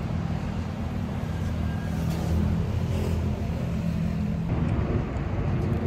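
Street traffic: a motor vehicle's engine running close by as a steady low hum, its tone changing about four and a half seconds in.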